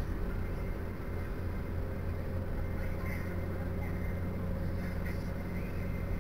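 Car engine and tyre noise heard from inside the cabin while driving on a paved road: a steady low drone.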